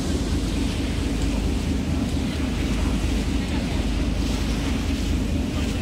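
Star Ferry under way: a steady rush of water churning along the hull and a low rumble, with wind buffeting the microphone.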